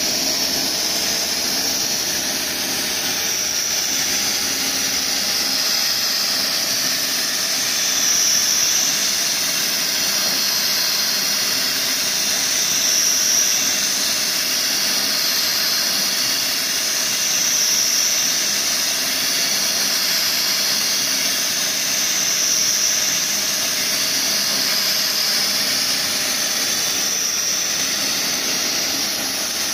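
Milling machine end mill cutting pockets into a stainless steel roll: a steady high-pitched cutting hiss over the running spindle, swelling and easing in regular waves every four to five seconds.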